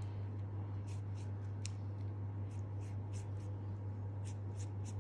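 Silicone pastry brush stroking and dabbing around the pastry rim of a pie dish: a quick, irregular string of soft, scratchy brush strokes, over a steady low hum.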